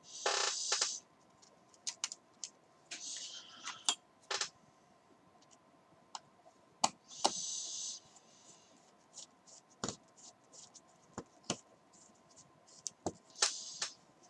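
Small clicks and scrapes of a hex driver and screws being worked into the plastic and graphite front end of an RC buggy, with a few short scraping hisses of about a second each scattered among the clicks.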